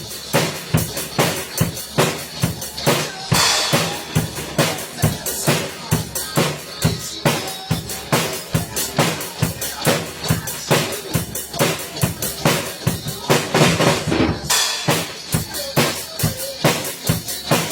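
Drum kit playing a steady beat of kick and snare strokes, with cymbal crashes about three seconds in and again late on.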